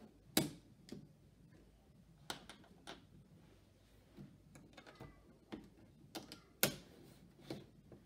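Plastic Snap Circuits parts being handled and snapped onto the clear plastic base grid: a scattered series of sharp clicks, the loudest about half a second in and near the end.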